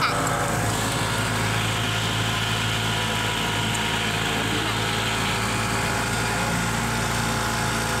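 Golf cart driving at a steady speed on a paved street: a constant motor hum with tyre and wind noise.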